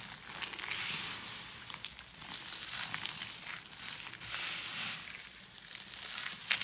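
Dry soap being crushed: a continuous crisp crunching and crackling, thick with tiny clicks, swelling and easing in waves.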